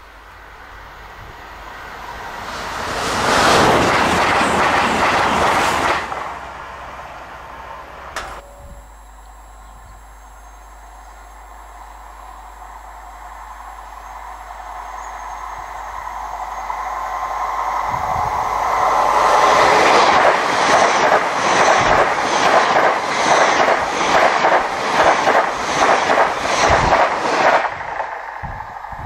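Two express passenger trains passing at speed on an electrified main line. First an LNER express rushes past in a brief loud swell. Then a CrossCountry train is heard approaching for several seconds and goes by with a rapid rhythmic clatter of wheels that stops just before the end.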